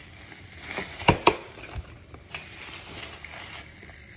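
Clear plastic packaging rustling and crinkling as it is handled, with two sharp knocks close together about a second in.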